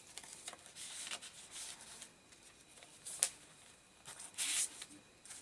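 Paper rustling as the pages of a handmade junk journal are turned and handled. There is a sharp tap about three seconds in and a louder swish of a page turning over a second later.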